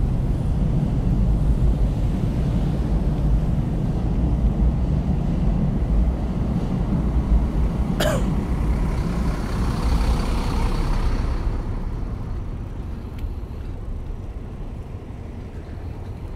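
Low rumble of heavy road traffic close by. A sharp click comes about eight seconds in, followed by a hiss lasting a few seconds, and the rumble fades away near the end.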